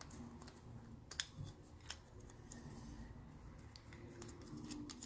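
Faint handling sounds of a transducer cable and its connector being worked through a slit rubber sealing block, with a couple of small clicks about one and two seconds in.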